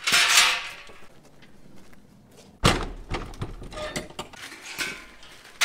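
A short rushing noise, then a heavy metal door slammed shut about two and a half seconds in with a low boom, followed by a run of smaller knocks and rattles, typical of a livestock lorry's door being closed after loading.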